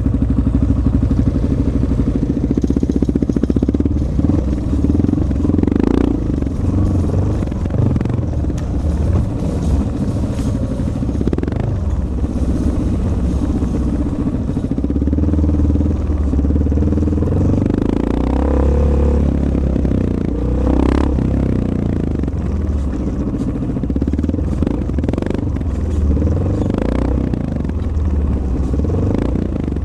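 250 cc single-cylinder dual-sport motorcycle engine running as it is ridden along a dirt trail, its note rising and falling with the throttle, with short knocks and rattles from the bike.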